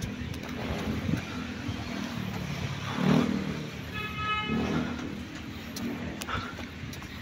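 Road traffic going by, with a short vehicle horn toot about four seconds in.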